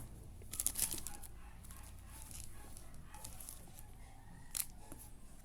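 Magic: the Gathering cards being handled and flipped through, faint. A cluster of light rustles and clicks comes between about half a second and a second in, and one sharp snap comes a little before the end.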